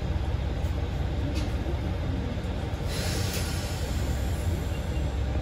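Diesel railcar's engine idling steadily, heard from inside the passenger cabin while the train stands in a station, with a brief hiss about three seconds in.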